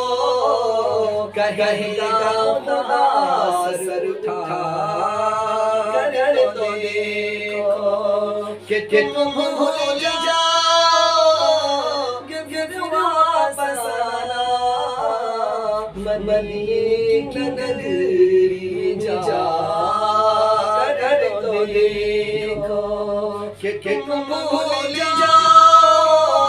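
A man singing an Urdu naat unaccompanied, in a melodic devotional chant with long held, ornamented notes.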